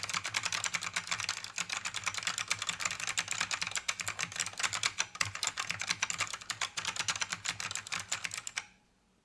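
Fast continuous typing on a vintage ACME KB-108 mechanical keyboard with Alps SKCM "Bamboo" Black switches, a dense run of sharp, clicky keystrokes that stops abruptly near the end.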